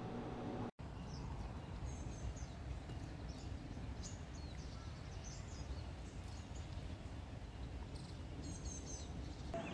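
Outdoor ambience: small birds giving short, high chirps now and then over a steady low rumble.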